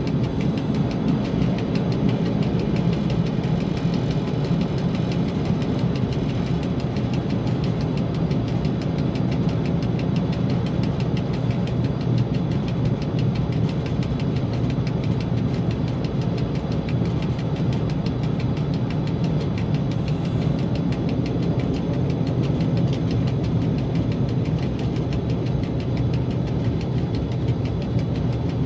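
ST44 'Gagarin' diesel locomotive's two-stroke V12 engine running steadily, heard from inside the cab as an even, low drone that does not change.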